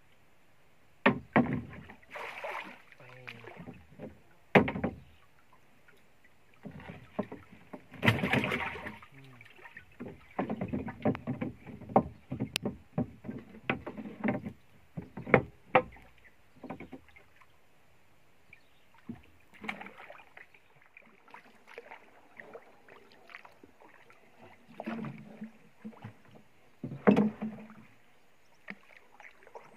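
Irregular knocks, clatter and water splashes from a small wooden boat as a fisherman handles a landing net and fishing tackle on its slatted deck and takes up a wooden paddle.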